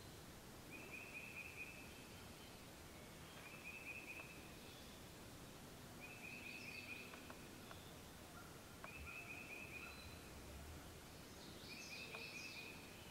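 Faint woodland birdsong: a small songbird repeats a short, even trill about every two to three seconds, with a few other bird chirps in between.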